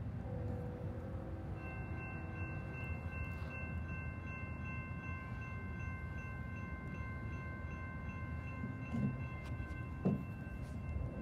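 Railroad grade-crossing warning bells start ringing a second or two in and keep ringing steadily over a low rumble from an approaching train.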